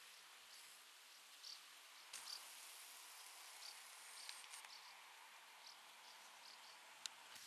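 Faint insect chirping: short, soft chirps, irregular and about one a second, over a steady hiss, with a single sharp click near the end.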